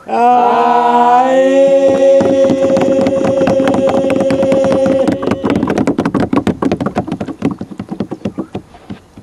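Men's voices singing a cappella in a chant-like style: a long held chord that slides up at the start and then holds, ending about five seconds in. Fast, even knocking beats join about two seconds in and go on after the voices stop, fading out near the end.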